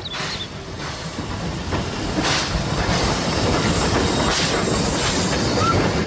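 Steam train running: a steady rumble and hiss from the steam locomotive and its coaches, growing louder over the first couple of seconds.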